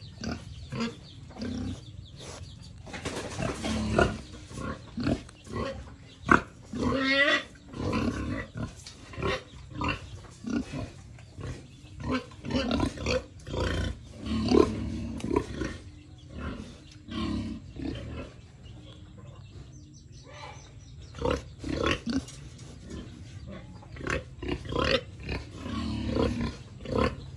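Domestic pigs in a pen grunting and squealing over and over, short calls with a few drawn-out squeals that rise and fall in pitch, the loudest about halfway through; the calls of hungry pigs wanting to be fed.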